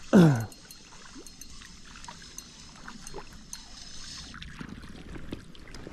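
A short voiced exclamation falling in pitch right at the start, then steady flowing river water with faint scattered clicks.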